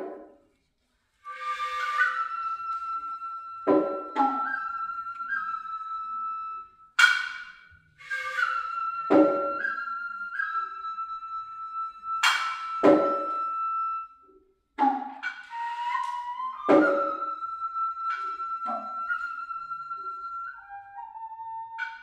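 Noh hayashi ensemble: the nohkan bamboo flute holds long, high, piercing notes that step up briefly now and then, over sharp single strokes of the kotsuzumi shoulder drum and ōtsuzumi hip drum every one to three seconds. The music breaks off briefly twice.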